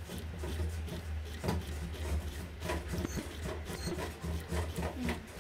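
Homemade solenoid engine running: the plunger rattling in and out of the copper coil and the flywheel turning give an uneven rubbing clatter of small clicks over a steady low hum.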